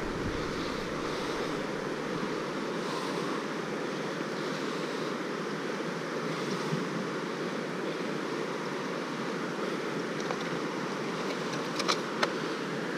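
Steady rush of flowing river water. Two or three sharp clicks come near the end.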